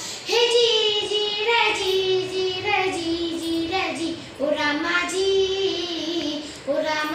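A young girl singing solo in a strong voice, in the style of a Marathi powada ballad: long held notes that waver and bend, in phrases broken by a few short pauses.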